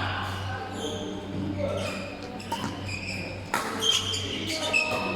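Indoor basketball game: a basketball bouncing and sneakers squeaking on the court in short high chirps, with distant players' voices, a sharp knock about three and a half seconds in, and a steady low hum throughout.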